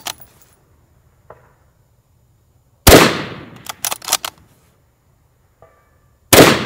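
Desert Tech SRS A2 bullpup bolt-action rifle in 6.5 Creedmoor fired twice in quick succession, about three and a half seconds apart, each shot followed by a fast run of metallic clicks as the bolt is cycled for the next round. A faint ring from the steel target being hit comes back a couple of seconds after the shots.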